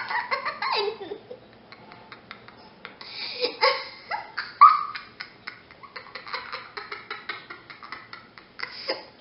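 A young girl laughing hard in fits: loud at first, dying down after about a second, then breaking out again with its loudest burst a few seconds in before tailing off.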